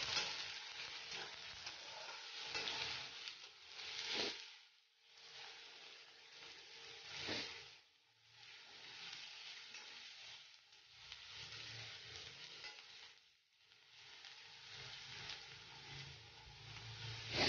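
Chopped onions sizzling in hot oil in a steel kadai as they are stirred with a spatula, the hiss swelling and dropping away briefly a few times.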